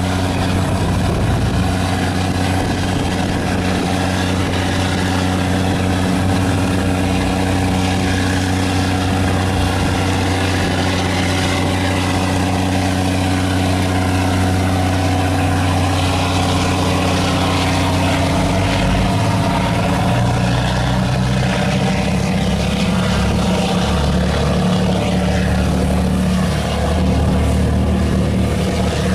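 Patrol boat's engines running steadily under way, a low drone that shifts slightly in pitch about 19 seconds in.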